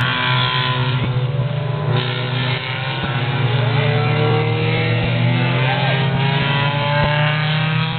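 Several road-racing cars' engines running hard, their pitch rising and falling as they brake, shift and accelerate through the corner, over a steady low drone.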